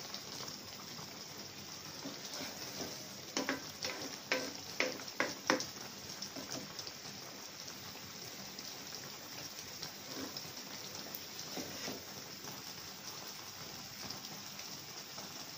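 Sugar syrup boiling hard in a wok around pieces of green mango, a steady bubbling hiss. It is joined by a handful of sharp taps about three to five seconds in.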